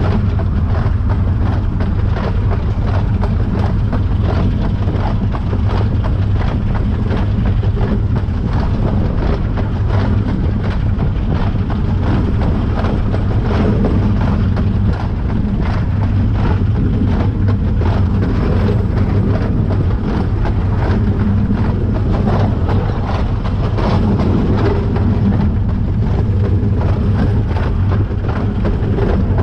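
Narrow gauge 2-6-2 steam tank engine running along the line, heard from its cab: a loud, steady running noise with a dense stream of small knocks and clatter.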